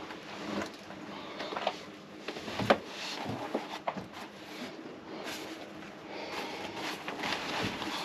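Knocks and rustling as a portable 12-volt fridge in a padded cover is lifted onto a metal slide-out tray and shifted into place, with one sharp knock about three seconds in and a few lighter ones just after.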